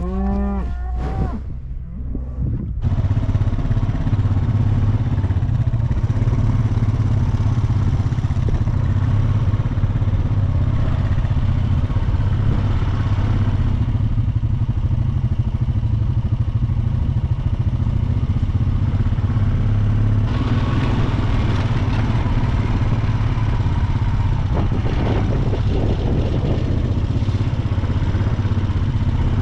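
A cow moos briefly at the start. Then a Bobcat skid steer's engine runs steadily at a constant speed for the rest of the time.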